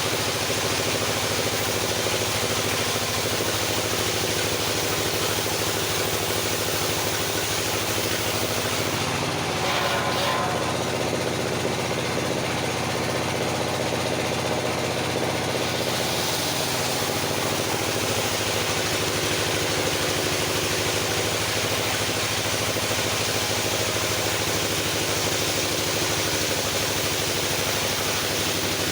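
Engine-driven circular sawmill running steadily with an even mechanical hum. From about nine seconds in, for some seven seconds, the note shifts lower, with a short rasping burst near ten seconds.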